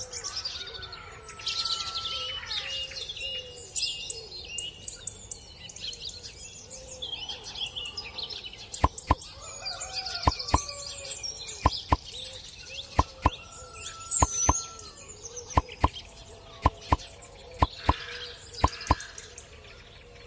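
Birds chirping and singing. From about halfway through, a run of short sharp pops comes in, mostly in pairs about once a second, louder than the birdsong.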